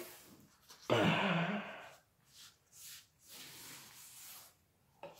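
A short voiced sigh about a second in, followed by faint rustling and sliding as stacks of trading cards are pushed across a cloth playmat.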